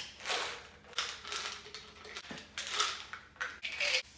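Plastic supplement bottles being handled and opened: caps clicking and tablets rattling as they are shaken out into a hand, in a string of short clicks and rattles.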